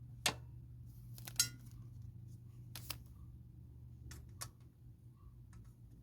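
Metal parts and tools clinking while nuts and bolts are handled: about six sharp clicks, two of them close together with a short metallic ring, over a steady low hum.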